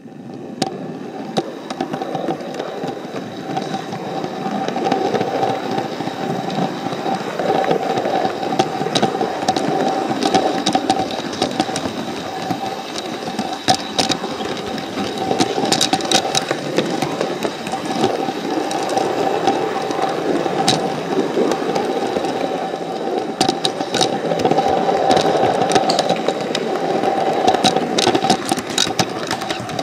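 Model train running along the track: a steady motor hum and rattle, with scattered sharp clicks from the wheels on the rails.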